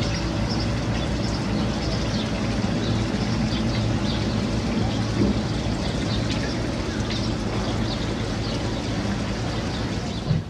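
Water running and splashing in a stone street fountain, a steady rushing noise with a low hum underneath. It cuts off sharply near the end.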